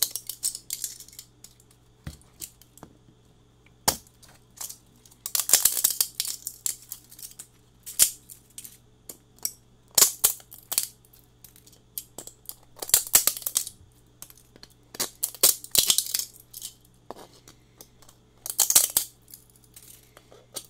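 3D-printed plastic support material cracking and snapping off a print as needle-nose pliers squeeze and twist it, in repeated bursts of sharp crackling clicks every few seconds.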